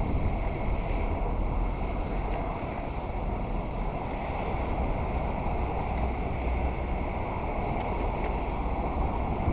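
Wind buffeting the microphone over a steady rumble of city traffic.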